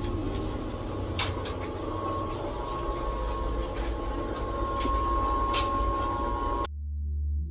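NewAir countertop nugget ice maker running while it makes ice: a steady machine hum with a thin high whine joining about a third of the way in, and a few sharp clicks. Near the end it cuts off suddenly to soft music.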